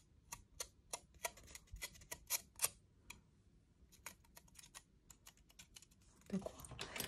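Faint, irregular light clicking of small plastic sequins (Nuvo sequins) dropping onto card stock as shaker-card filling. The clicks come in a quick cluster, pause briefly about three seconds in, then return more sparsely.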